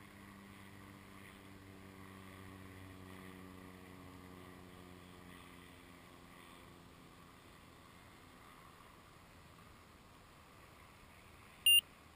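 Faint low hum of a distant engine, fading away over about eight seconds. Near the end, a single short high electronic beep.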